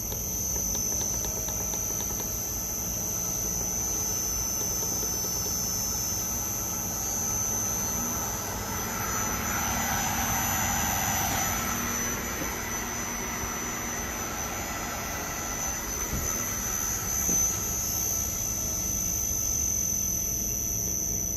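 2x72 belt grinder's motor running unloaded on its variable frequency drive, with a steady high-pitched whine from the drive and a low hum; for a few seconds near the middle the running noise grows louder and fuller, then settles back.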